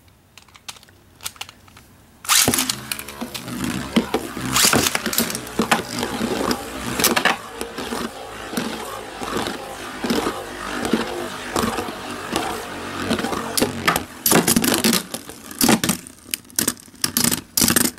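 Two metal-wheeled L-Drago Beyblade tops launched with string launchers about two seconds in, then spinning on the plastic stadium floor with a steady whir and clashing again and again with sharp clicks. The loudest flurry of hits comes a few seconds before the end.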